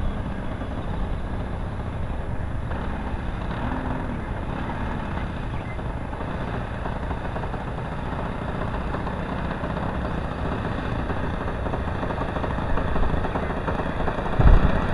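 Four-stroke engine of a model Cessna running steadily, heard through wind noise on the microphone.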